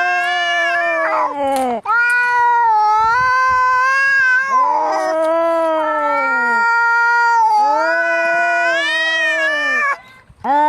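Angry domestic cats caterwauling: long, drawn-out yowls that waver up and down in pitch, one after another with brief breaks about two seconds in and near the end, the threat calls of a cat fight or standoff.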